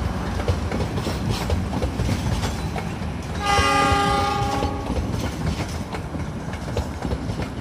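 Passenger train coaches rolling past, the wheels rumbling and clattering over the rails. About three and a half seconds in, a train horn sounds once for about a second and a half.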